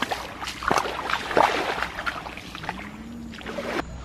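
Gentle water lapping and sloshing in the shallows at the shoreline, an irregular crackle of small splashes.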